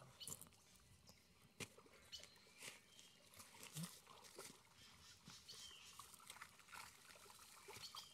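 Near silence with faint, scattered small clicks and rustles.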